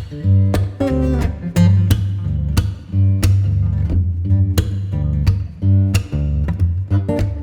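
Background music: strummed guitar over a steady beat and strong bass.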